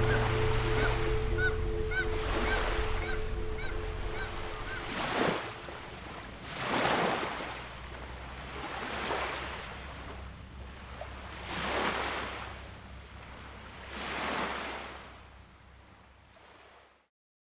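Sea waves washing onto a shore, surging and ebbing about every two to three seconds, with short repeated bird calls over them in the first few seconds. A steady low music chord stops about five seconds in, and the sound fades away near the end.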